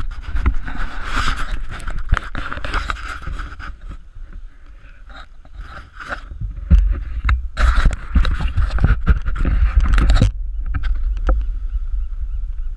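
Wind buffeting an action camera's microphone as a steady low rumble, mixed with rubbing, scraping and knocks from the camera being moved about; the noise eases about ten seconds in.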